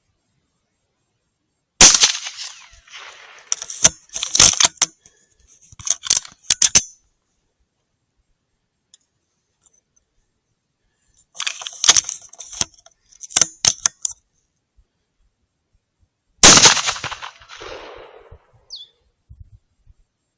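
Two rifle shots, each a sharp crack with a short fading tail, about two seconds in and again near sixteen seconds. Between them come two bursts of short metallic clicks and clacks from the rifle's action being worked.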